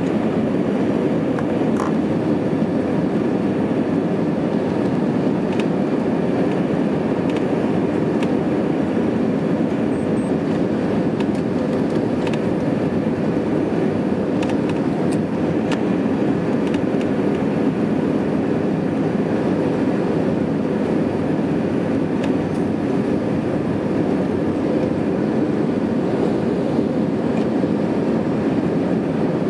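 Steady cabin noise inside a jet airliner on its landing approach: engine and airflow making a low, even rumble that does not change, with a few faint clicks.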